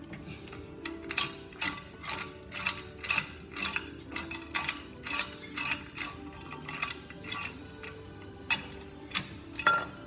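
A run of sharp metallic clicks, about three a second, with the loudest few near the end, from hand tools working the metal electrical box and fittings at the base of a dishwasher during wiring.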